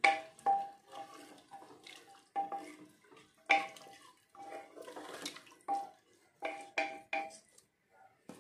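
A wooden spatula stirring rice, peas and water in an aluminium pressure cooker: a string of uneven knocks and scrapes against the metal pot, each with a brief metallic ring.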